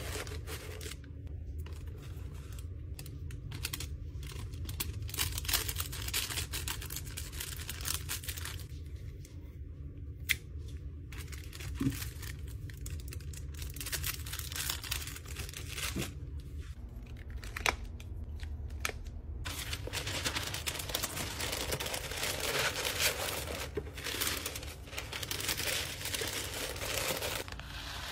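Tissue paper and honeycomb kraft wrapping paper rustling and crinkling in bursts as they are folded and tucked by hand into a cardboard shipping box, with a few sharp light clicks and taps between.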